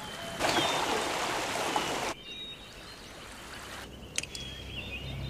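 Shallow stream water running over a pebble bed. The rush is loud for the first couple of seconds, then drops to a gentler, steady flow.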